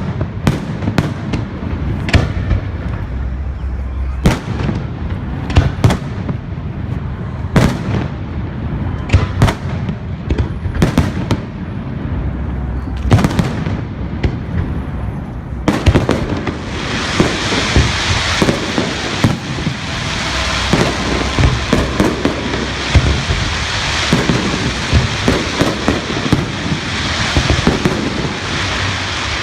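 Fireworks display: a run of sharp bangs from bursting shells, then from about halfway through a dense, continuous crackling under further bangs.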